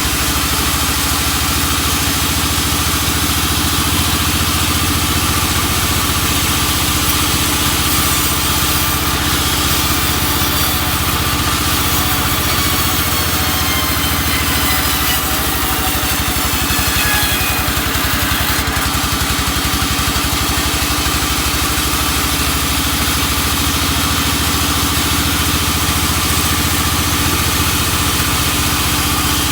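Sawmill machinery running steadily with a constant engine-like drone, with a few faint falling whines in the middle.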